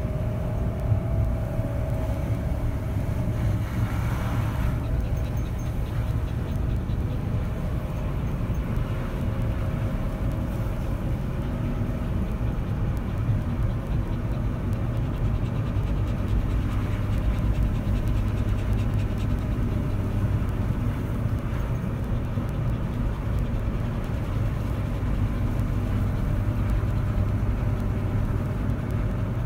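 Car driving, heard from inside the cabin: steady engine and tyre rumble.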